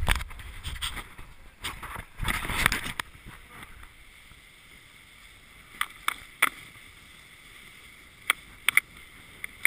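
Rescue toboggan (Cascade 350) sliding and scraping over snow, with a rumbling hiss that is loudest in the first three seconds. It then goes quieter, broken by several short sharp knocks in the second half.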